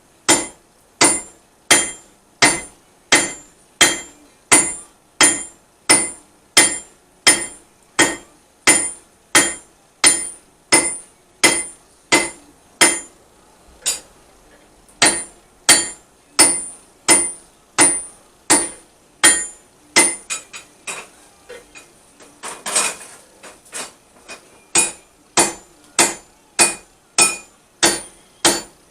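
Blacksmith's hammer striking steel on an anvil in a steady rhythm of about three blows every two seconds, each blow ringing. About two-thirds through the hammering pauses for a few lighter taps and a brief burst of noise, then resumes.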